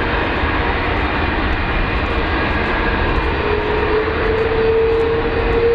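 Airbus A330-300's Rolls-Royce Trent 700 jet engines running at takeoff power: a steady heavy rumble and roar, with an engine whine that grows stronger and rises slightly from about halfway in.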